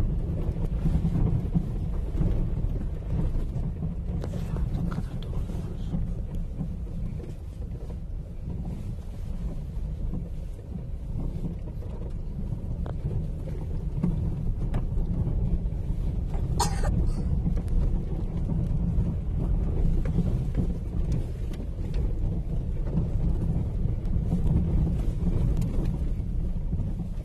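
Low, steady rumble of a car driving slowly over a potholed, muddy dirt road, heard from inside the cabin, with a few light knocks from the suspension and one short, sharper rattle about two-thirds of the way through.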